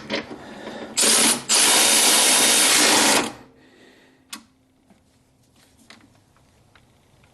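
Power tool running in two bursts while tightening the fasteners on a parking light: a short burst about a second in, then a longer run of nearly two seconds. A single click follows, then it goes quiet.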